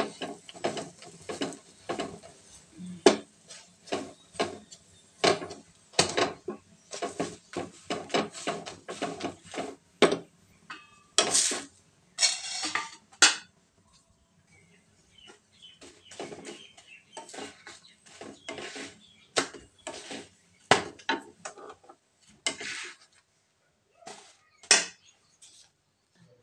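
Metal clatter and knocking of a wobbly tawa (flat griddle) rocking on the gas stove's grate as a roti is pressed down on it with a wooden roti press; the knocks come thick and fast for the first half, then thin out to scattered clinks.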